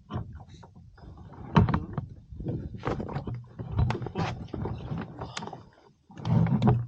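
Irregular knocks, clicks and clatter of gear being handled aboard a small fishing boat.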